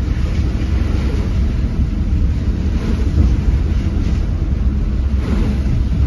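Steady low rumble of engine and road noise inside a moving vehicle's cab, with wind noise over it.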